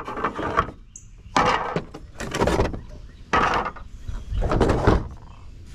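Pool pump parts being handled and knocked about: about five separate bursts of clunking and clattering, each under a second long.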